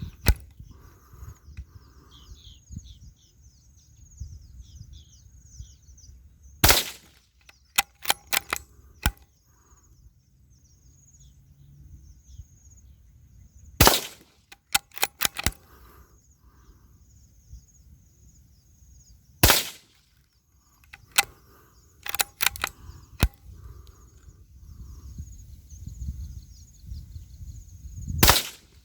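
CZ 452 bolt-action .22 LR rifle firing four single shots, each a sudden crack, spaced several seconds apart, with quieter clicks and knocks in between. Birds chirp faintly in the background.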